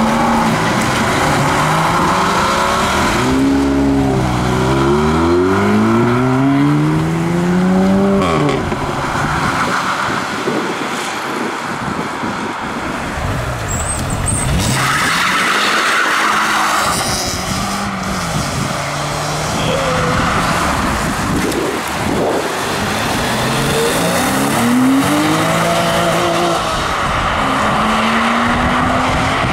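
Sports cars accelerating away one after another, their engines revving up and dropping in pitch as they change gear.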